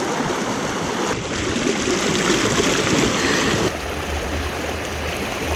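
Small mountain creek rushing and burbling over rocks, a steady wash of water that changes in tone about a second in and again at about four seconds.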